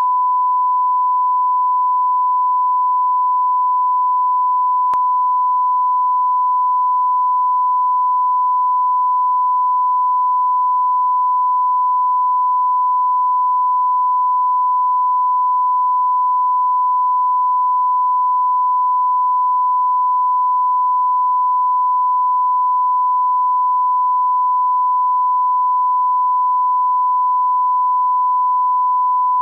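Steady 1 kHz line-up reference tone at −12 dB, the continuous test tone that accompanies SMPTE colour bars.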